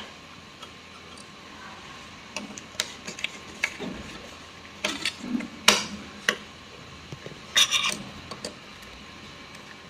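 Irregular small metallic clicks, taps and scrapes of a screwdriver working on a sewing machine's needle plate to open it, with the louder knocks about six and eight seconds in.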